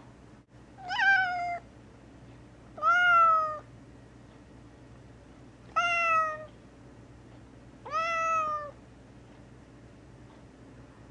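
Gray tabby cat meowing four times, a few seconds apart, each meow under a second long and falling slightly in pitch at the end.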